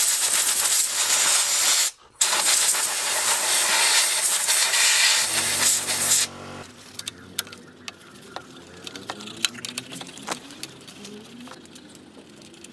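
Compressed air blasting from an air blow gun, blowing dirt off a small engine's carburettor and float bowl: a loud hiss of about two seconds, a brief break, then a second, longer blast of about four seconds that stops abruptly. After that, only light clicks and taps.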